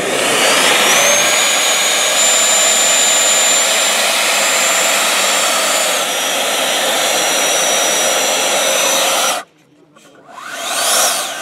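Electric ducted fan of a Freewing Eurofighter Typhoon RC jet running at taxi power: a high whine over a dense rushing blow, steady, dropping slightly in pitch about six seconds in. Near the end it cuts off suddenly, then spools up in a quick rising whine and winds back down.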